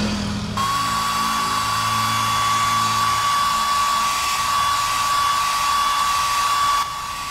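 Handheld hair dryer running: a steady rush of air with a thin high whine. It comes in about half a second in and cuts off shortly before the end.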